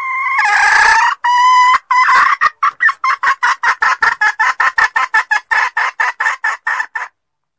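Junglefowl hen calling: a long rising squawk, then a fast run of clucks at about four or five a second that stops abruptly near the end.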